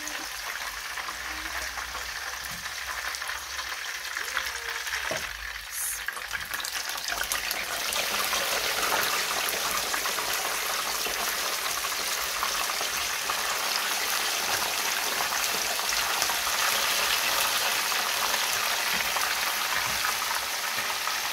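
Hot oil sizzling as whole fish deep-fry in a pan, the frying growing louder about eight seconds in.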